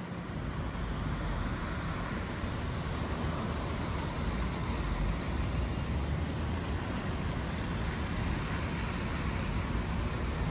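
Steady city street traffic noise on rain-wet streets, with a deep rumble underneath and no single event standing out.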